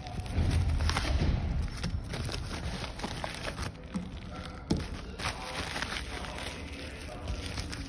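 Plastic packaging rustling and crinkling as a courier bag and bubble wrap are handled, with light knocks and taps against the work mat; the handling is loudest in the first second or so, with one sharp tap about halfway through.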